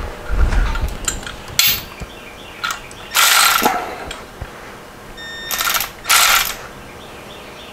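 A socket ratchet clicking in three short runs, the first about three seconds in, as nuts on the engine crankcase bolts are run down.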